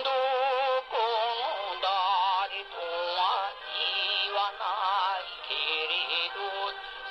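Music: a song's melody line with heavy vibrato, held notes wavering and sliding in pitch over accompaniment.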